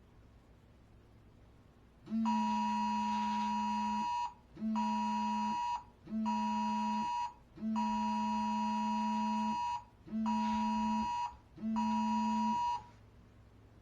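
Wireless Emergency Alert attention tone sounding on a mobile phone, announcing the nationwide IPAWS test alert. A loud, steady beep comes in a long-short-short pattern that plays twice; it starts about two seconds in and stops near the end.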